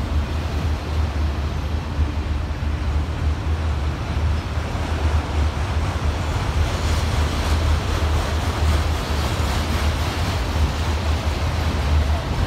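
Autorack freight cars of a passing train rolling on the rails: a steady low rumble with wheel noise, with more clatter in the second half.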